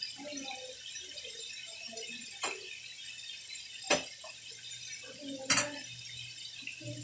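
Battered chicken pieces deep-frying in a steel wok of hot oil: a steady sizzling hiss, broken by three sharp clicks, the loudest about five and a half seconds in.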